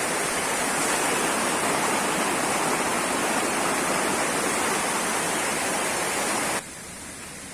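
Waterfall and rapids rushing close by, a steady loud wash of water noise. About six and a half seconds in it cuts off suddenly, leaving a much quieter background.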